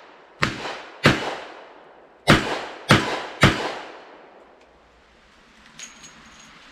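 Smith & Wesson Model 64 .38 Special revolver firing five shots of 158-grain lead round-nose reloads: two about half a second apart, then after a short pause three more at the same pace, each sharp report trailing off in a brief echo. A few faint clicks follow near the end.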